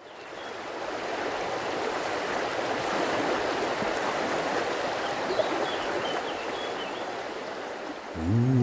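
Steady rushing of stream water, fading in at the start, with a few faint high chirps about midway. Near the end a low humming voice comes in.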